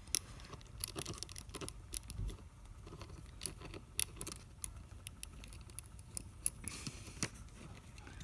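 Small screwdriver working a tiny screw out of a Bachmann model locomotive: scattered, irregular light clicks and ticks of metal on metal and of handling the parts.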